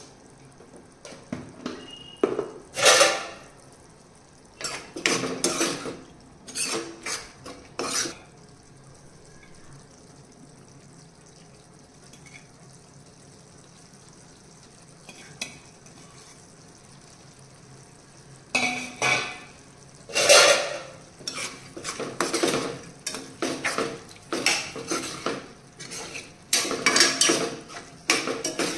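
A metal spoon clinking and scraping against a frying pan while stirring a thick curry. The clatter comes in two spells, a few clinks early and a longer run of stirring from about two-thirds of the way in, with a quiet stretch between.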